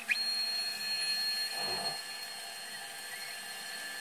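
Stepper motors of a 3D-printed roll-over-azimuth antenna positioner whining at a steady high pitch as they turn the antenna arms. The whine sweeps up just after the start and then holds steady.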